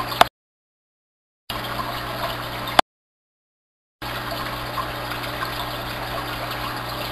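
Water bubbling and churning in a large aquarium from its air-pump diffusers and filters, over a steady pump hum. The sound cuts to dead silence twice for about a second, each time just after a sharp click.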